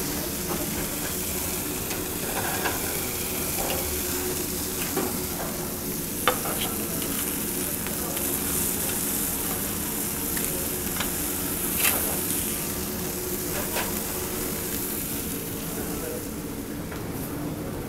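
Steaks sizzling steadily in beef tallow in a hot skillet, with sharp clicks of metal tongs on the pan, loudest about six and twelve seconds in. The loud sizzle is the sign that the meat is still moist inside.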